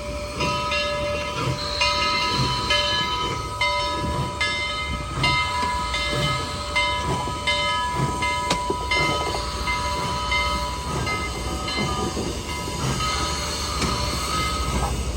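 Southern Railway 4501's Princeton three-chime steam whistle blowing a long held chord over the running train, with a regular beat about twice a second underneath. The lowest note of the chord drops out about halfway through.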